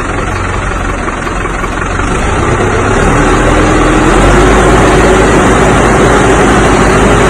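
New Holland tractor's diesel engine running under a dense, steady noise, getting louder and higher in pitch about three seconds in.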